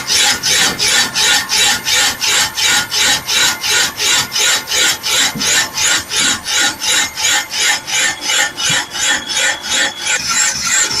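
Machine facing head cutting a metal pipe fitting: a loud rhythmic rasp about three and a half times a second, as the cutter bites on each turn. Near the end it gives way to electronic music.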